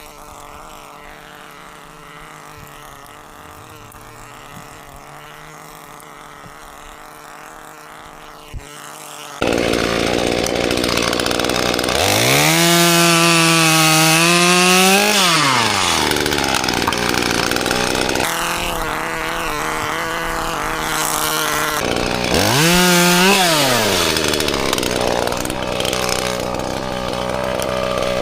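Small two-stroke Stihl 021 chainsaw that comes to life suddenly about nine seconds in and runs at idle. It is revved up twice, a long rev and later a shorter one, with the pitch rising and falling back to idle each time.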